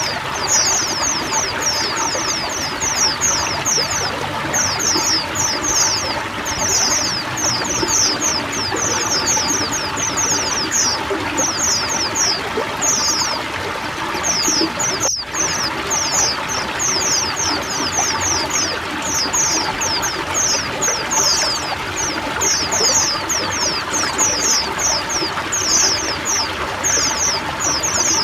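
A crowd of white-eyes (pleci) singing together in fast, high, chattering phrases without a pause, over the steady sound of running water. Everything drops out for a split second about halfway through.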